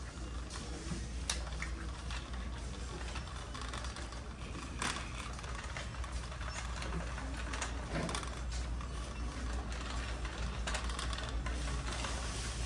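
Metal wire shopping cart being pushed over a concrete floor, its basket and wheels rattling with scattered clicks and knocks over a steady low hum.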